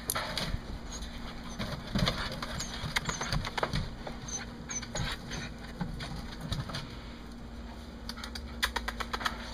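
A scatter of light taps and rustles, thickest near the end, with a few short high chirps from a small bird.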